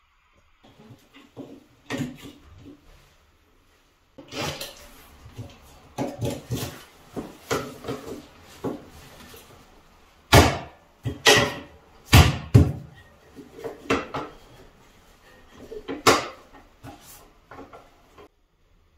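A white plastic waterproof socket cover being fitted by a gloved hand onto a tiled wall: a string of sharp plastic clicks and knocks, with a short pause about three seconds in and the loudest snaps past the middle.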